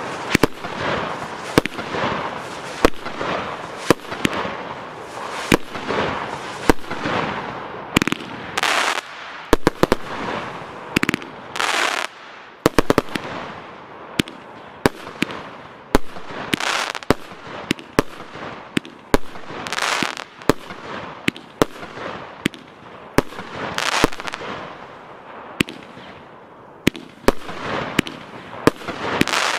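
A Piromax Carbon 52-shot, 30 mm consumer firework battery (cake) firing shot after shot. Sharp launch and burst reports come about one to two a second, with a hissing haze between them.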